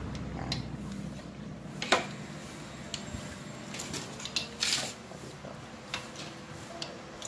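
Scattered small clicks and a short scrape of metal terminals and plastic connectors being worked loose as the spade terminal lugs are pulled off a motorcycle's stock horn by hand and tool. The sharpest click comes about two seconds in.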